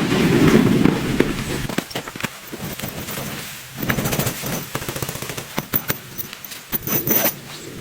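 A rapid, irregular run of sharp clicks and crackles, over a loud low rumbling noise in the first second or so.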